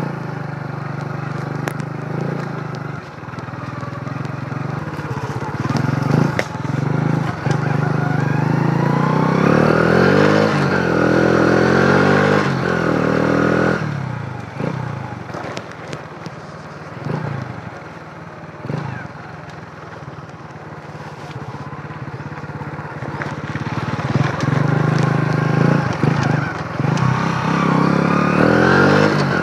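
Customized 50cc Honda Dream's single-cylinder four-stroke engine running while ridden over a dirt track. The engine note rises as it accelerates about a third of the way in and again near the end, easing off in between. Short knocks and rattles come from bumps in the track.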